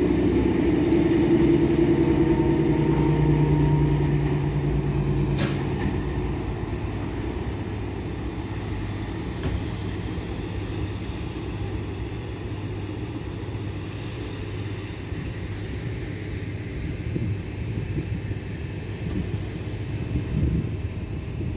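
Departing passenger train drawing away: a steady engine hum with wheel rumble that fades over the first several seconds, leaving a lower, steady rumble.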